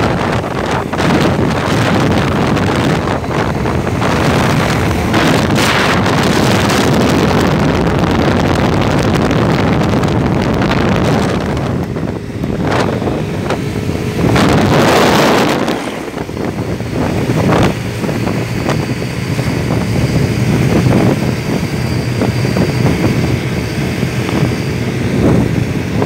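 Wind buffeting the microphone of a vehicle travelling along a road, a loud steady rush with the vehicle's running noise underneath. It swells to a louder rush about fourteen seconds in.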